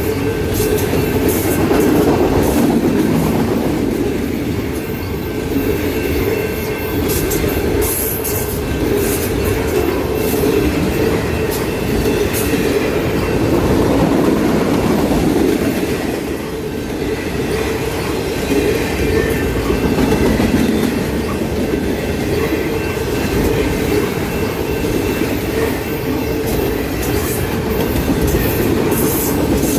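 Freight cars of a long train rolling past close by: a steady rumble of wheels on rail, with sharp clicks over rail joints and a thin steady whine of wheels on the rail.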